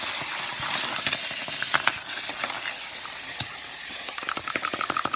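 Clockwork wind-up toys running, their spring-driven gears whirring with a steady hiss and many small clicks. About four seconds in, a faster rhythmic buzzing starts up.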